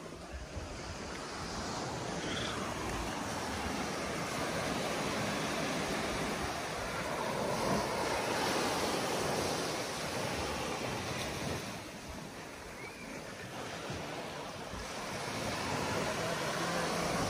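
Small waves breaking and washing up a sandy beach, the surf swelling and fading in long surges, with some wind buffeting the microphone.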